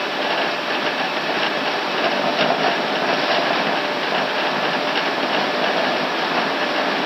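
Airbus A380 flight deck during the takeoff roll: a steady loud rumble and rush as the jet accelerates down the runway, with faint irregular knocks from the landing gear rolling over the runway surface.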